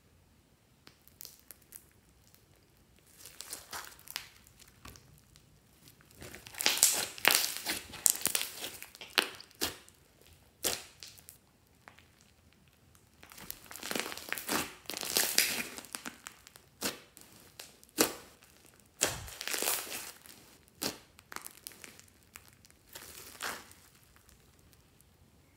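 Slime studded with foam beads being squished and stretched by hand: irregular bursts of crackly clicks and pops, coming in clusters with quiet gaps between them.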